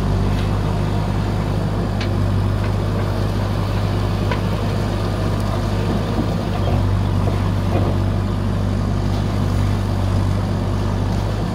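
JCB 3DX backhoe loader's diesel engine running steadily while the backhoe digs, with a few faint clicks.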